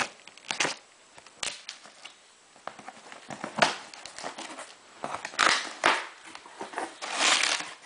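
Cardboard shipping box and packing material being handled and opened: irregular scrapes, knocks and crinkling rustles, with the longest, loudest rustles about five and seven seconds in.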